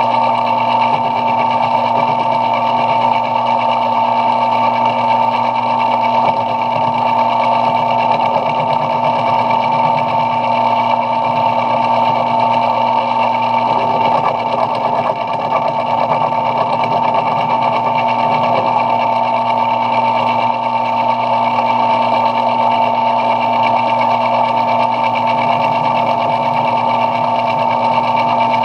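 Belt-driven metal lathe running steadily while turning brass stock, a constant motor-and-drive whine with a strong steady tone.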